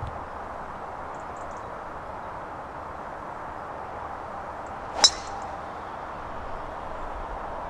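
A metal-headed golf driver striking a ball off the tee once, about five seconds in: a single sharp metallic ping with a brief ring.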